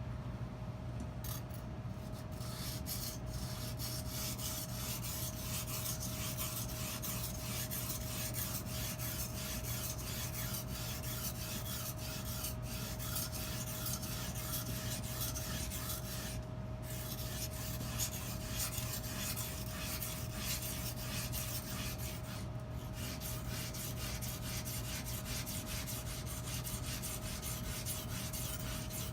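Edge Pro sharpening stone scraping back and forth along a butcher knife's edge in quick, steady strokes, with two brief pauses about seventeen and twenty-three seconds in.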